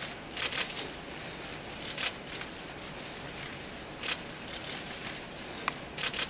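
Hushed theatre: a steady hiss with a handful of short, soft noise bursts, one every second or two, and a single sharp click near the end.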